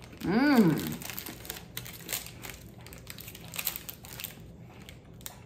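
A hummed, approving "mmm" that rises and then falls in pitch about half a second in, followed by on-and-off crinkling of plastic snack packaging.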